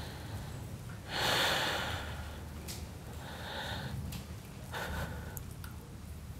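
A person breathing heavily: a loud, drawn-out exhale about a second in, then two softer breaths.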